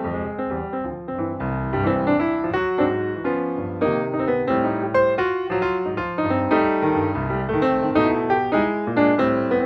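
Background piano music, a steady run of quick notes with a bass line under it.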